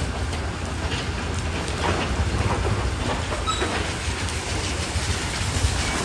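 Mitsubishi crawler bulldozer working: the diesel engine runs steadily under a low rumble while the steel tracks clank and rattle.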